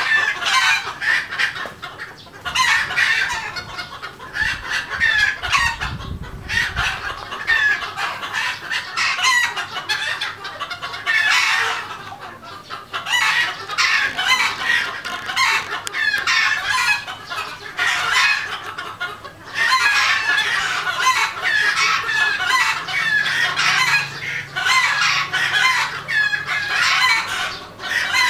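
A flock of red junglefowl clucking and chirping almost without pause, many birds calling over one another in short, high calls. A brief low rumble comes about five seconds in.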